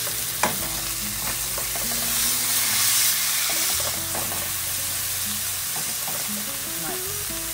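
Pork tenderloin sizzling steadily in hot olive oil in a metal frying pan as it is browned and turned with a slotted metal spatula. The spatula gives a sharp knock against the pan about half a second in.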